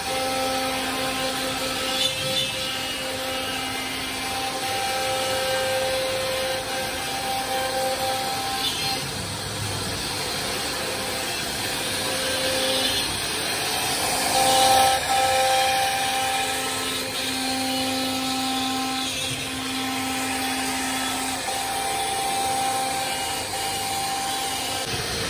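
Chencan M1325 CNC router's spindle running while its bit routes straight grooves into a wooden sheet: a steady cutting noise, with pitched whines that come and go every second or two as the gantry moves, and a brief louder swell about midway.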